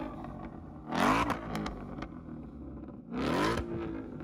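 Roush Mustang's engine idling through its quad exhaust and blipped twice, about one and three seconds in, each rev rising and falling quickly.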